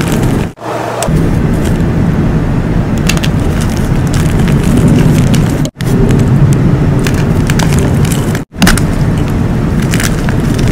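Blocks of dyed gym chalk crushed and crumbled by hand: a dense, continuous crunching full of sharp cracks as the blocks snap and grind into powder. The sound cuts out briefly three times.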